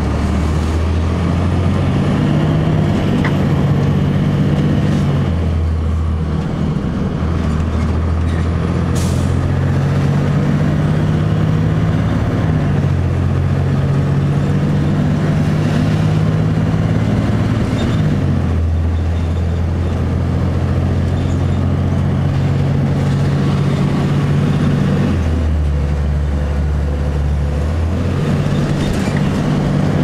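Cummins ISC diesel engine of a 2002 Blue Bird CS transit bus, heard from inside the bus while driving. The engine note changes pitch in steps several times as the Allison B400R automatic transmission shifts, with a brief hiss about nine seconds in.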